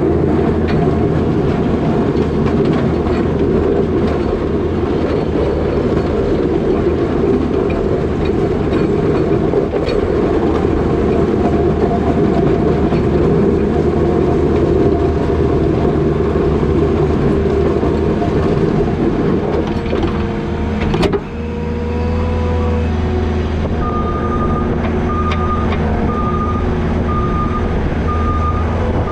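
New Holland L220 skid steer's diesel engine working under load while the box plow pushes wet snow, with a dense scraping rush over the engine. About two-thirds of the way in there is a sharp clunk, after which the engine runs more evenly, and near the end a backup alarm beeps about five times.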